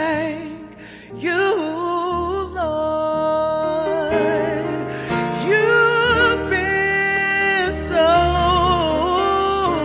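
Gospel worship song: a solo voice sings long held notes with vibrato and sliding pitches over a low bass accompaniment.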